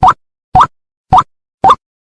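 White-breasted waterhen (ruak-ruak) calls played as a hunter's lure: short rising notes repeated about twice a second, four of them, with dead silence between.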